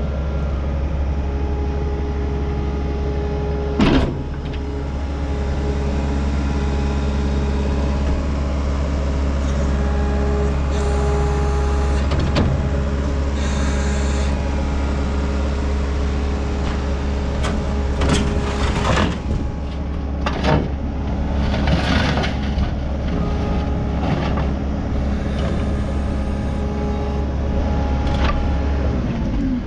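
Case SV185 skid steer's diesel engine running steadily, with a steady whine over it. Several sharp knocks come through, one about four seconds in and a cluster of them later on.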